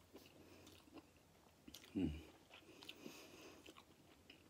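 Faint chewing of a mouthful of chicken wing, with small wet mouth clicks and a short low sound about two seconds in.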